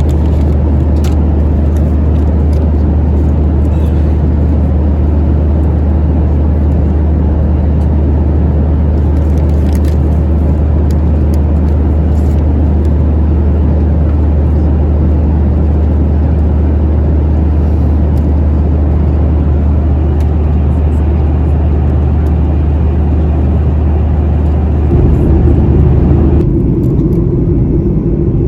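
Steady cabin noise inside a Boeing 737-900ER airliner: a loud low drone from the jet engines and a rush of airflow. Near the end, the drone shifts and the hiss quiets.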